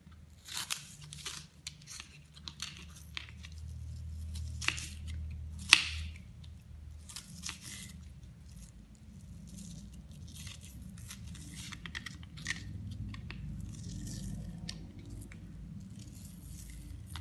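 Kitchen knife slicing half an onion into thin lengthwise strips on a plastic cutting board: irregular crisp cuts, each ending in a tap of the blade on the board, with one sharper knock about six seconds in.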